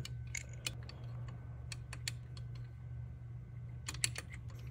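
Light, irregular clicks and taps of small metal parts as bolts are handled and fitted at the engine's fuel rail, over a steady low hum.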